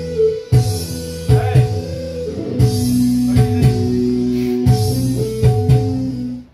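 Background music with guitar, a deep bass line and a steady beat; it cuts off at the very end.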